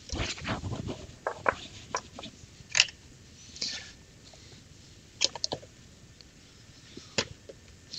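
Tools and equipment being handled and moved about on an electronics repair bench: a quick run of clicks and knocks over the first two seconds, a sharp click a little before three seconds in, then scattered clicks and taps.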